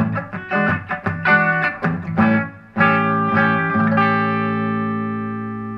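Electric guitar lead phrase on a Fender Modern Player Telecaster's bridge humbucker, played through a Vox VT20X amp. Quick picked notes, then about halfway through a final chord is struck and left to ring out, slowly fading. The tone is a bit twangy but not fat.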